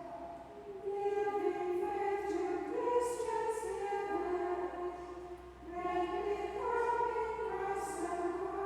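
A choir of nuns singing slowly unaccompanied, on long held notes that step from pitch to pitch.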